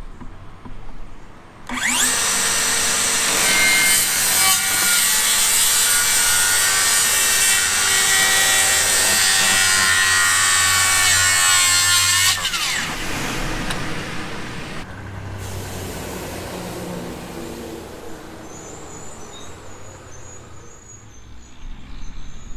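DeWalt 60-volt cordless circular saw starting about two seconds in and cutting a wooden board on a 57-degree bevel for about ten seconds, then the blade spinning down with a falling pitch.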